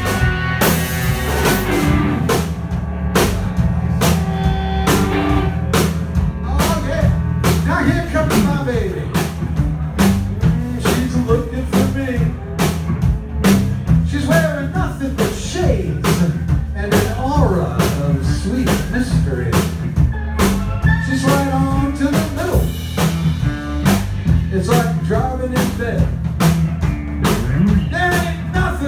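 Live band playing a bluesy rock song with a steady drum-kit beat, electric bass, electric guitars and steel guitar.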